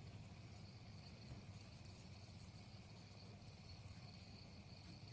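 Near silence: room tone with a faint, steady high-pitched tone.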